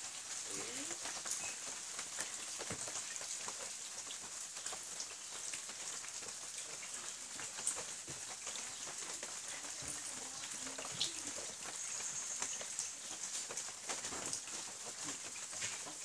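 Rain falling onto the surface of a koi pond: a steady hiss with many small, irregular ticks of drops hitting the water.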